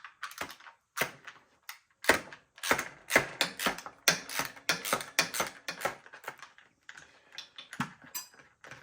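Irregular clicks and clatters of hand tools and parts being handled while a Razor MX650 electric dirt bike is taken apart, likely a screwdriver working loose a part such as the number plate.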